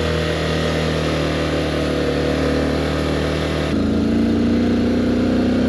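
Motorcycle engine running steadily under load on a steep uphill climb, picked up by a helmet-mounted microphone. Its note changes abruptly to a higher pitch about two-thirds of the way through.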